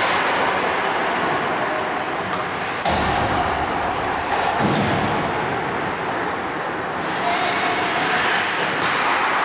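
Hockey game in play: steady rink noise with a few sharp knocks of stick or puck, one about three seconds in and another near the end.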